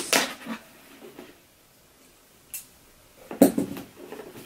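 Cardboard box being opened by hand: rustling and scraping of the flaps, a small click partway through, and a sharp knock about three and a half seconds in, followed by more rustling.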